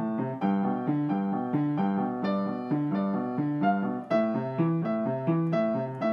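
Background piano music: a simple repeating broken-chord pattern of notes at a steady pace.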